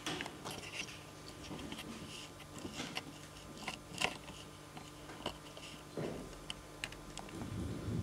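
Faint room noise with a low steady hum and scattered small clicks and rustles, one sharper click about four seconds in.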